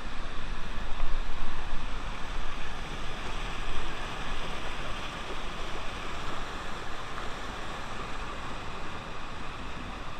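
River water rushing and churning through narrow channels and small falls in limestone rock, a steady loud white-water noise that swells a little about a second in.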